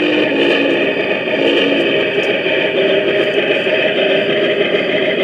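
Aristo-Craft Mallet garden-scale model steam locomotive running slowly, its onboard QSI sound system playing steam locomotive sounds through a small speaker along with motor and wheel noise. The sound is steady and loud, with several held tones in it.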